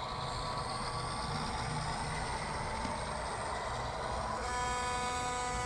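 Simulated diesel locomotive prime mover sound from an ESU HO sound decoder, played through a small Bluetooth speaker inside a model boxcar, running steadily at raised throttle. About four and a half seconds in, a steady whine of several high tones joins it.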